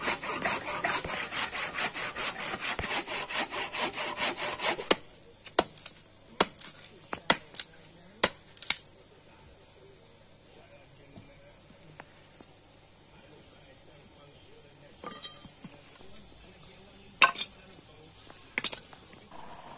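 Handsaw cutting through wood with quick back-and-forth strokes, stopping about five seconds in. Afterwards there are scattered sharp knocks and clacks of wood pieces, with a few more near the end.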